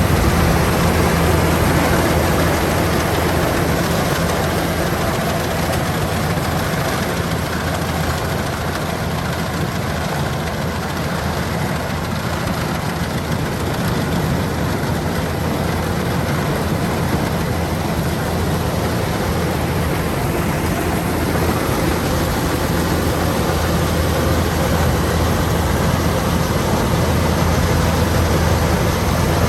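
Kubota DC-105X combine harvester running steadily, with a deep, unbroken engine drone.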